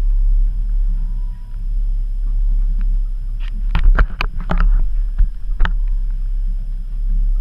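Steady low rumble on an open fishing boat. About three and a half seconds in, a quick run of sharp knocks and clicks close to the microphone, lasting about two seconds, as a hand handles the camera.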